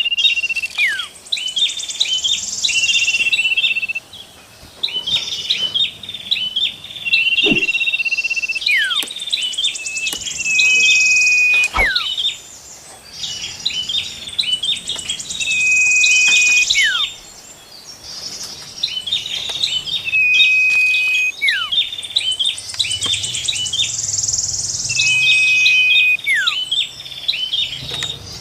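Layered songbird lure recording of common iora, prinia and warbler song: a held whistle ending in a falling note over rapid chipping notes and a high buzzy trill. The pattern repeats about every five seconds.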